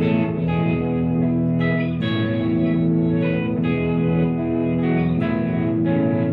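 Epiphone Les Paul Junior electric guitar played through an amplifier, strummed chords and notes ringing over one another with effects or reverb, as a sound test of the guitar with a newly fitted nut.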